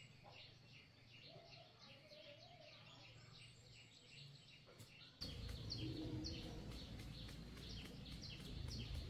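Faint small-bird chirping: short high calls repeated a few times a second. About five seconds in, a louder low, steady background noise comes in under the chirps.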